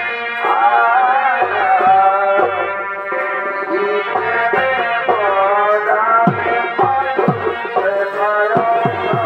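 Purulia Chhau dance music: a shehnai plays a continuous, wavering melody over deep drum strokes whose pitch drops. The drum strokes come closer together in the second half.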